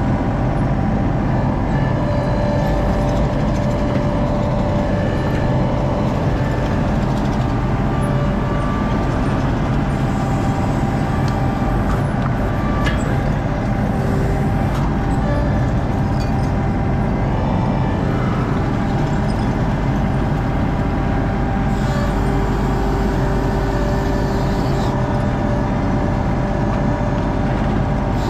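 ASV skid steer's engine running steadily under load, heard from inside the cab, with a steady hydraulic whine and a few light knocks of debris shifting in the bucket.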